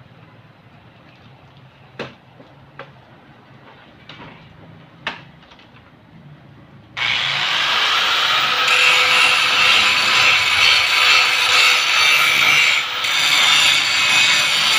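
A few light knocks, then about halfway through a handheld angle grinder starts abruptly and grinds loudly and steadily against a rusty metal frame, with a brief dip near the end.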